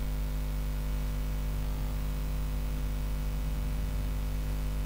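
Steady electrical mains hum, a stack of constant low tones, with a light hiss underneath.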